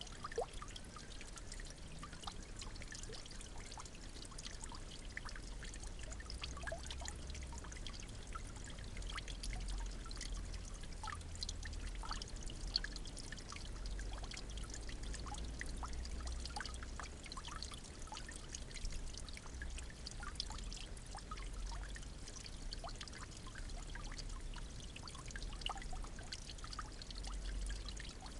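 Water trickling steadily, with a continuous patter of small irregular splashes and drips over a low rumble.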